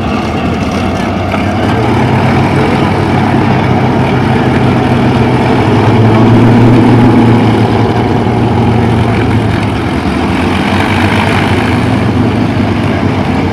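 Lockheed P-38 Lightning's twin Allison V-12 piston engines running at low taxiing power, a steady deep drone. It grows louder about six seconds in as the aircraft rolls closest, then eases off a little.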